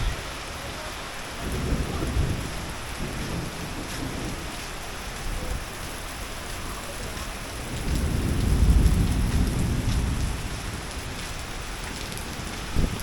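Heavy rain pouring steadily, with two deep rumbling swells: a short one a second and a half in, and a longer, louder one about eight seconds in.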